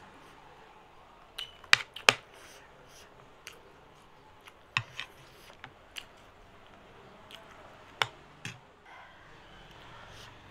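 A metal spoon clicking and scraping against a plate as food is scooped up, with mouth-eating sounds between. There are about ten sharp clicks, the loudest two close together about two seconds in.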